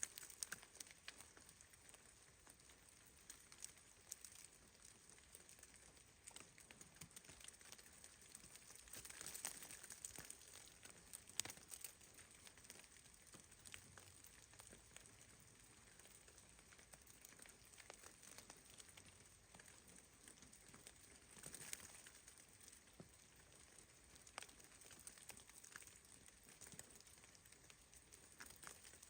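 Near silence, with faint scattered ticks and rustles, a little louder about nine to ten seconds in and again about twenty-two seconds in.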